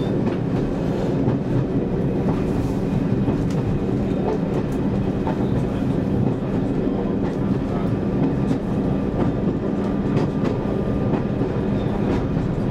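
Class 101 diesel multiple unit running along the line, heard from the driving cab: a steady drone from its underfloor diesel engines, with occasional clicks of the wheels over the rails.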